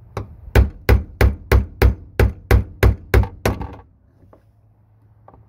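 A hammer striking a dull chisel set against the fuel pump module's locking ring: a light tap, then about ten sharp blows, about three a second, that stop after roughly three and a half seconds. The ring is stuck and not yet turning.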